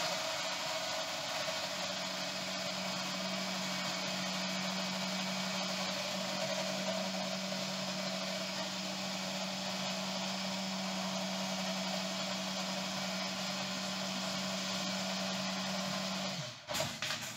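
Electric mini chopper's motor running steadily, its blade churning frozen banana, milk and honey that have already turned creamy. It is an even hum that cuts off near the end.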